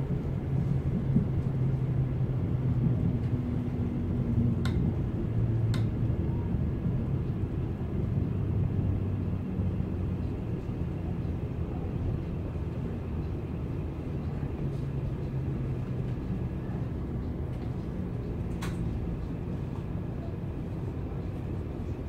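Cabin sound of a Class 707 Desiro City electric multiple unit braking into a station. The running gear gives a low rumble, with a low motor hum that steps down in pitch and fades as the train slows. Three short sharp clicks sound over it.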